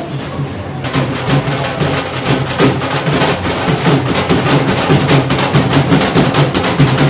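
Music with fast, dense drumming, the strikes growing louder and busier about a second in.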